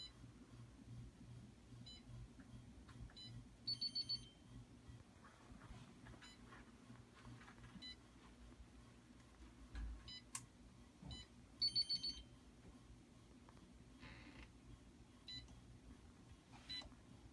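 Electronic safe keypad beeping as buttons are pressed one at a time: single short high beeps every second or two. Twice a rapid run of four louder beeps sounds, the usual signal of a wrong access code being rejected.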